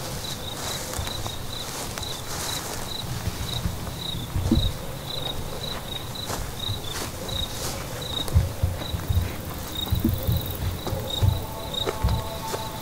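A cricket chirping steadily, about two chirps a second, over the soft thumps of footsteps through grass.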